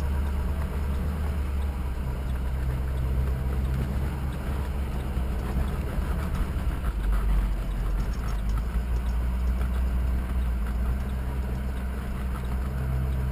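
A truck's engine running at low speed, heard from inside the cab as it drives slowly over sand: a steady low rumble.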